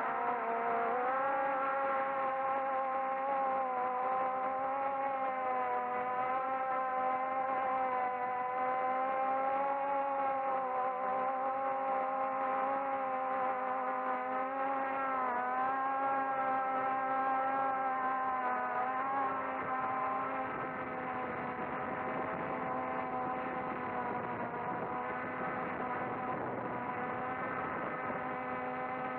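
SKY-HERO 'Little' quadcopter's electric motors and propellers whirring, heard from its onboard camera: a steady buzzing tone whose pitch wavers up and down with the throttle. About twenty seconds in, the tone turns rougher and a little quieter.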